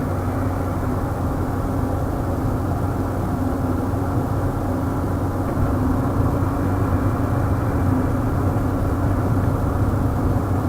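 Steady engine and tyre noise heard from inside the cabin of a car driving on a snowy road, an even low hum.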